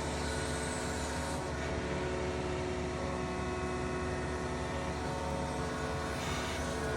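Yanmar excavator's diesel engine running steadily.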